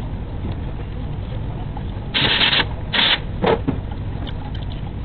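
Wiring harness and plastic plug connectors being handled in an engine bay: two short rustling bursts about two and three seconds in, then a brief click, over a steady low hum.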